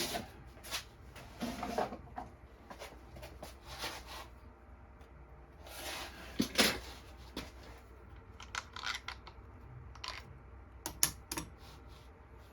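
Scattered clicks, taps and short scrapes of hand tools and small plastic and metal parts being handled while an air pump's housing is taken apart, over a faint low steady hum.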